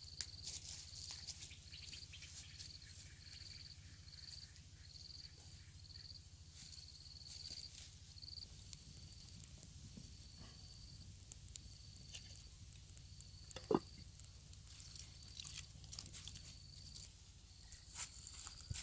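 An insect chirping steadily, a high pulse repeating about three times every two seconds, with scattered small clicks and crackles. A single sharp knock sounds about two-thirds of the way through.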